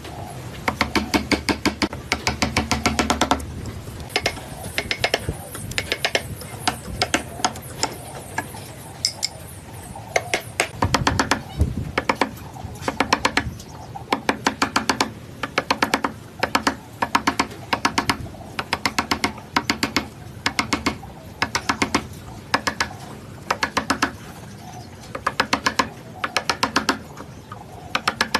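Rapid mechanical clicking or tapping in short bursts, each burst a quick run of sharp clicks, repeating about once a second.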